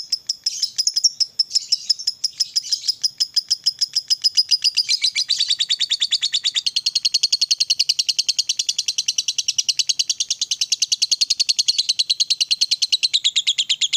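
Lovebird's long chattering trill, the prized ngekek panjang of a fighter lovebird: a rapid unbroken run of sharp high notes, about ten a second, growing fuller about five seconds in.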